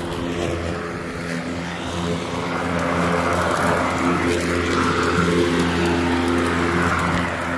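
Battery-powered electric lawn mower running and cutting grass: a steady motor hum, with a rushing swell from the blade in the grass for a few seconds in the middle.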